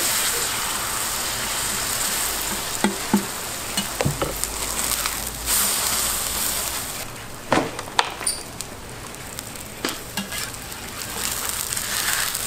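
Buchimgae (Korean green-onion pancakes) sizzling in hot oil on a flat griddle, a steady hiss. A metal spatula clicks and scrapes against the griddle several times as the pancakes are spread and turned.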